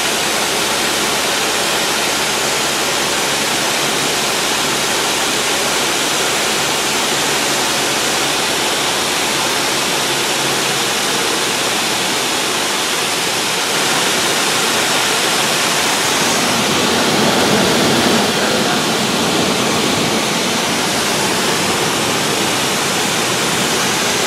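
Loud, steady cabin noise of a 1960s four-seat light airplane in flight: engine and propeller drone blended with rushing air. About two-thirds of the way through it swells a little louder and deeper for a few seconds, then settles back.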